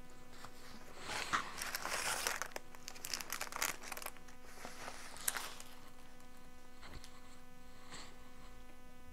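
Hands rustling inside a fabric drawstring bag and crinkling a clear plastic packet while pulling out a wrapped item, with most of the rustling in the first few seconds and one light click a little after five seconds. After that, only a faint steady hum.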